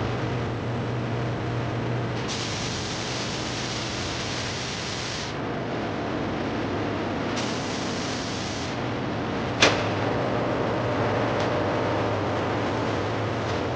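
Steady running noise of food-processing machinery with a low hum, broken by two bursts of hissing, the first about three seconds long and the second about one, and a single sharp click about two-thirds of the way through.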